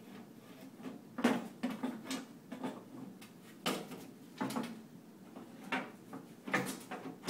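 Scattered knocks and clunks of the rear door panel being fitted back onto a 1948 Mills War Eagle slot machine's cabinet, about seven of them, the loudest at the very end.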